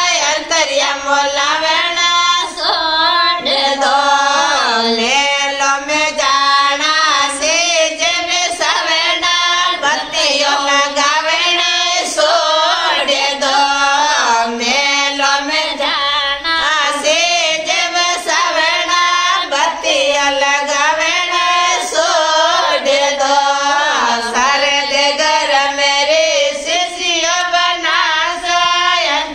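A group of women singing a Marwari wedding song (vivah geet) together in Rajasthani folk style, their voices unaccompanied by instruments.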